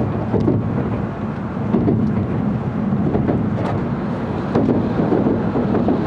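Steady low rumble of an N700-series Shinkansen train running, heard inside the passenger cabin, with a few faint clicks.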